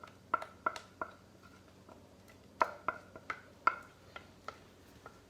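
Metal spoon clinking and knocking against a pot and baking pan, a string of irregular sharp clinks, each with a short ring, as thick cooked cornmeal is scooped into the pan.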